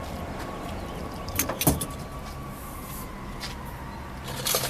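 A few sharp clicks and a knock about a second and a half in, and more clicking near the end, from a hand tool being handled, over a steady background hum.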